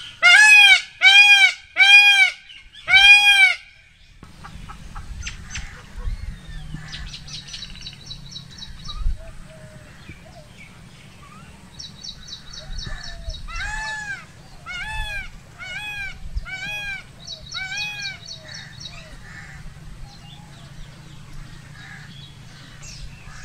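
Indian peafowl (peacock) calling: a series of four loud, arched honking calls, then after a pause a fainter series of five similar calls about 14 to 18 seconds in. Between the two series come short bursts of rapid high trills over a low background rumble.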